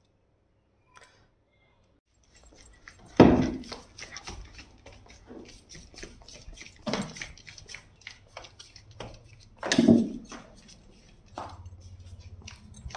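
Golden retriever puppy's claws clicking and tapping on a tile floor as it scampers about, starting about two seconds in, with three louder thumps about three, seven and ten seconds in.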